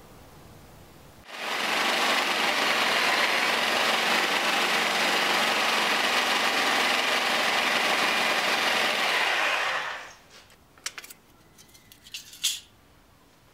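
Handheld power tool running steadily for about eight seconds, starting and stopping abruptly. A few light metal clicks and clinks follow as thin sheet metal is handled over the steel billet.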